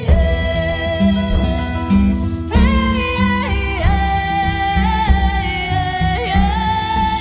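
Music with a sung vocal line held and sliding in pitch over a plucked-string and bass accompaniment.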